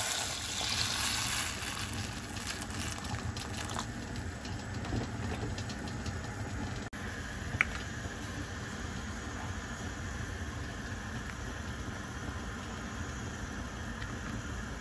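Water poured over seared pork ribs in a hot pot, hissing briefly, then the pot at a rolling boil: steady bubbling over a constant low rumble. A single short click a little past halfway.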